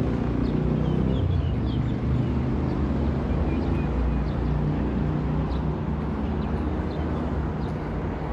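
A motor vehicle's engine running steadily: a continuous low hum and rumble with road noise, with a few faint high chirps above it.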